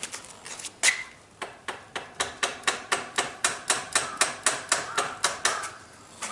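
Hand-tool work on a motorcycle's front wheel: a few scattered sharp metallic taps, then an even run of quick sharp taps or clicks, about six a second, stopping shortly before the end.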